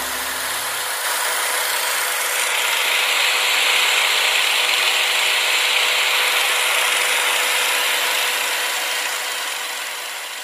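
Corded electric drill, clamped to a board, spinning a homemade sanding disc. It runs with a steady mechanical noise that grows quieter near the end.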